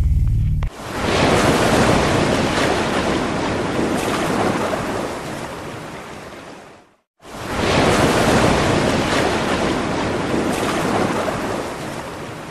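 Two surf washes, each starting abruptly as a dense rush of wave noise and fading out over about six seconds, with a short break between them.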